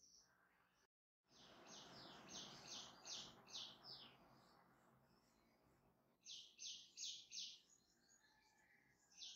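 Faint bird song: two runs of short, high chirps repeated about three times a second. The first run has about seven chirps and starts around two seconds in; a second, shorter run of four or five comes later.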